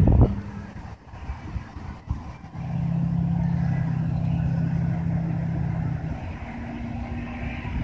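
A motor vehicle's engine humming steadily for a few seconds, then a single slightly higher steady note near the end.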